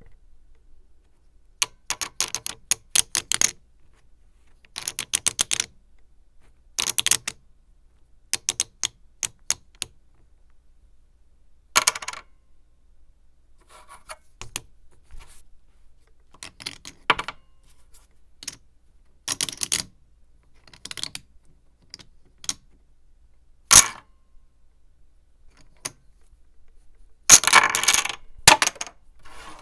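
Clay poker chips clicking and clattering against one another and a hard table, in about a dozen short bursts separated by pauses. The longest and loudest clatter comes near the end.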